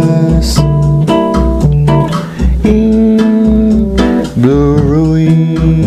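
Instrumental bossa nova: plucked guitar chords over a bass line, with notes sliding between chords.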